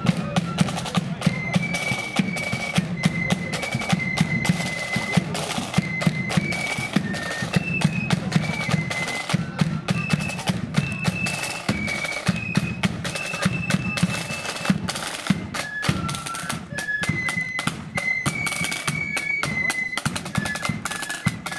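Marching flute band playing a tune: flutes in unison on a high melody over rattling side drums and a steady bass drum beat.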